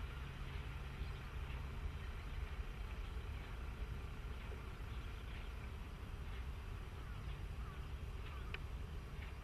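Faint, steady drone of KiHa 40/48 diesel railcars heard from a distance as they run away, over a low rumble.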